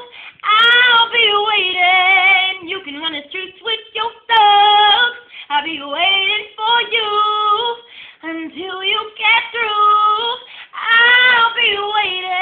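A woman singing solo and unaccompanied in an R&B style, with long held notes and sliding runs broken by short breaths.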